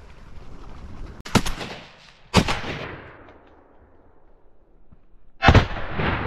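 Three shotgun shots: the first two about a second apart, the third some three seconds later. Each one echoes away.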